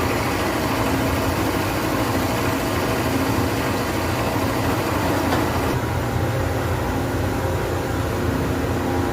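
Industrial CNC machine running with a steady mechanical hum, a low drone and a few fixed tones. About two-thirds of the way through, the higher hiss drops away while the hum carries on.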